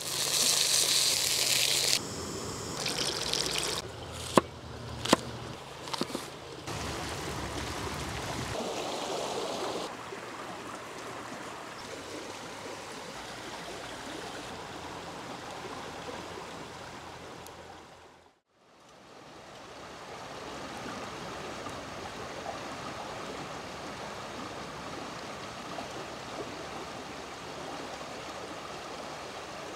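Pork belly sizzling in a hot pan, with a few sharp clicks a few seconds in. After a brief dropout to silence about two-thirds of the way through, a shallow stream flows steadily over stones.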